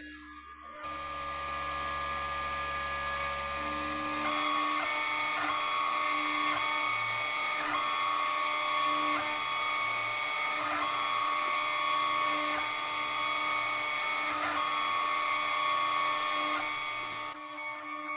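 Sainsmart Genmitsu PROVerXL 4030 CNC router's spindle starts under a second in and whines steadily. About four seconds in it settles into cutting wood, with a regular surge about every one and a half to two seconds as the bit passes back and forth, and it winds down near the end.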